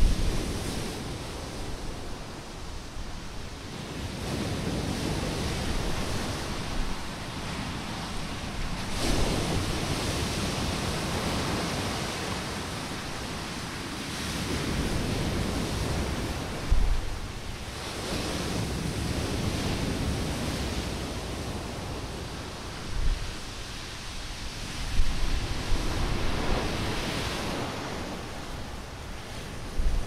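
Sea waves breaking on the shore in stormy weather, the wash swelling and falling back every few seconds. Wind gusts buffet the microphone with a few short low thumps.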